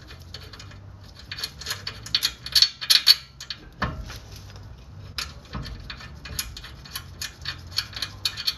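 Metal clinks and clicks from a front brake caliper being wiggled into position and its bolt fitted, with a dull knock about four seconds in.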